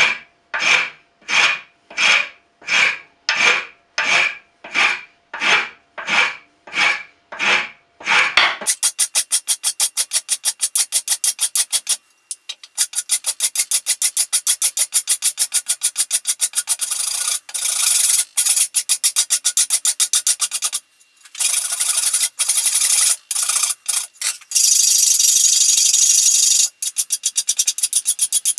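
Wood rasp being drawn over a burl birch knife-handle block, scraping in slow, even strokes about one and a half a second. After about eight seconds the strokes turn very rapid and higher-pitched, with a few brief breaks.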